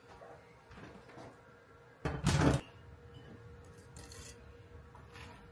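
Metal spatula and baking sheet clinking and scraping against a wire cooling rack as cookies are lifted across, with small taps throughout and one louder clatter about two seconds in.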